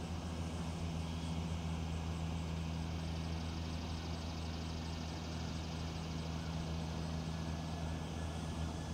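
A steady low mechanical hum made of several constant tones, with a faint ticking high up repeating about three times a second.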